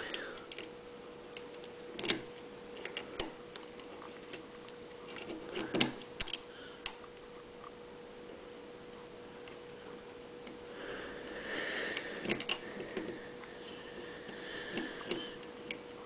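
Irregular light metallic clicks and ticks of a hook pick probing and setting the wafers inside a cheap wafer padlock during single-pin picking.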